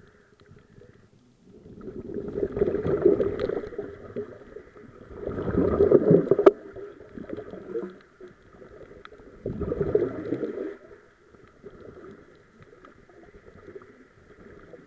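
Scuba regulator exhaust bubbles heard underwater: three bubbling bursts of exhaled breath, each one to two seconds long and roughly four seconds apart, with a faint steady hum between them. A sharp click comes at the end of the second burst.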